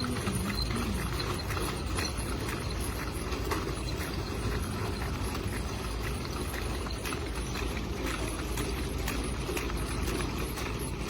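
Steady low rumble of an airplane, even and unbroken.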